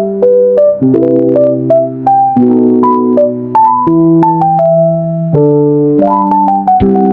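Background piano music: held chords changing about once a second under a melody of short notes.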